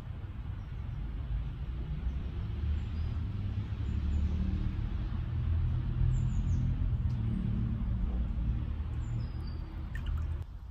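Aerosol spray-string can spraying: a steady hiss over a strong low rumble that stops suddenly near the end.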